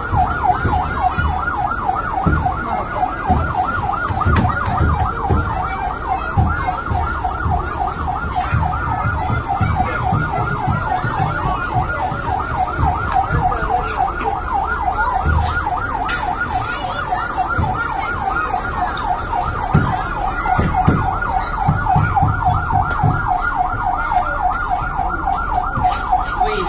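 Electronic siren of a kids' ride-on fire truck sounding a fast warble, wavering rapidly up and down about five times a second. It stops abruptly at the very end.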